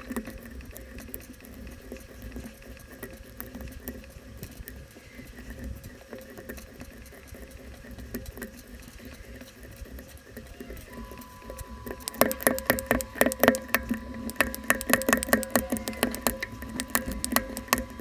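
Plastic keycaps being pulled off a Keychron K3 low-profile hot-swap mechanical keyboard, one after another: a run of light clicks and snaps that grows louder and busier about twelve seconds in.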